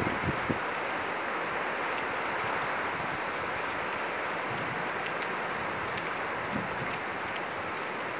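Steady heavy rain falling on banana plants and trees.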